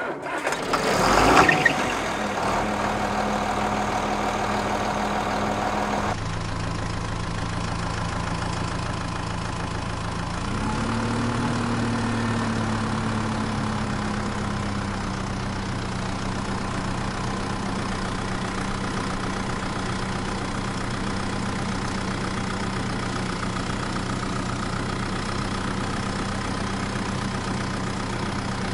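A small engine-like motor running steadily at an even pitch, as of a miniature model tractor under way. It opens with a loud, noisy burst in the first two seconds, and the pitch rises briefly about ten seconds in.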